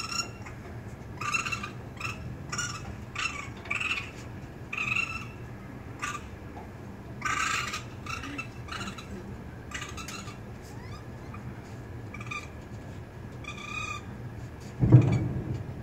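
Raccoon kits crying: short, high-pitched calls repeated about once a second. A louder, lower sound comes near the end.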